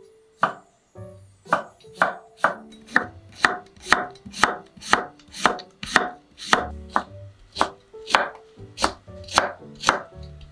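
Kitchen knife slicing a cucumber on a wooden cutting board: a crisp, even chop about twice a second as each slice comes off and the blade meets the board.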